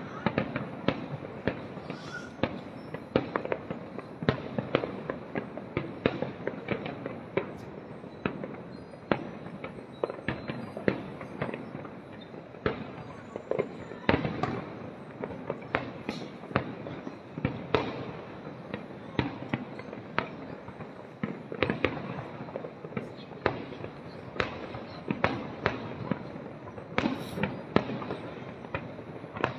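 Fireworks display: shells bursting in quick, irregular succession, several sharp bangs a second over a continuous noisy background.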